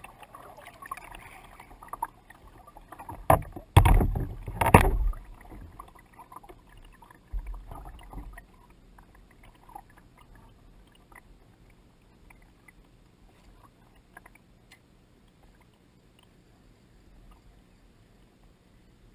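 Lake water lapping and splashing against a kayak's hull, interrupted by a few loud knocks about three to five seconds in and a duller thump around eight seconds; after that only faint, soft lapping.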